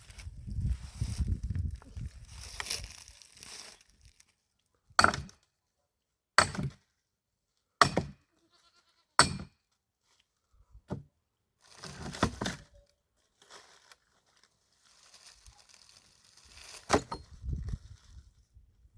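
Wood being chopped while gathering firewood: rustling of branches, then four sharp strikes about a second and a half apart, and a few more scattered knocks later.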